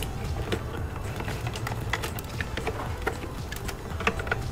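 Scattered small plastic clicks and rattles of wiring-harness connectors and bundled wires being handled and worked loose in a car's fuse and relay box, over a low steady rumble.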